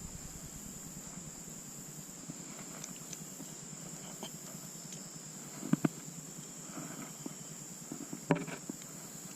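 Steady high-pitched insect song, typical of crickets, with a few sharp knocks: a quick pair about six seconds in and a louder single knock near the end.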